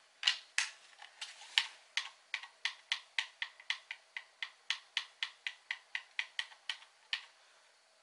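Light plastic clicks from a handheld Xbox controller: a few as the headphone cable is plugged in, then an even run of about three clicks a second as buttons are pressed.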